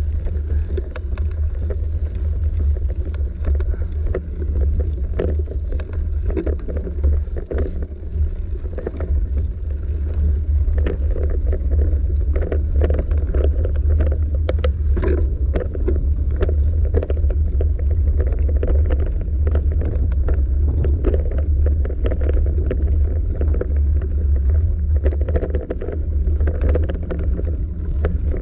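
Mountain bike ridden along a dry dirt singletrack: tyre noise on the dirt, with frequent clicks and rattles from the bike over bumps. A steady deep rumble of wind on the microphone runs under it all.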